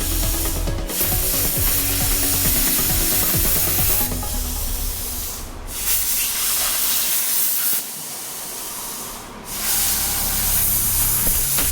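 Welding equipment hissing in three bursts of about a second and a half each, over low background music.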